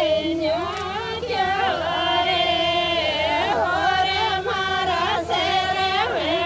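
Women's voices singing a Marwari bhaat wedding folk song in long, held notes that bend slowly up and down.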